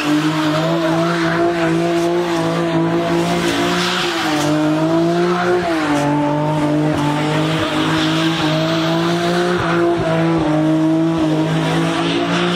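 Car engine held at high revs while its tyres spin and squeal in a burnout. The revs dip briefly about four and six seconds in, then climb back.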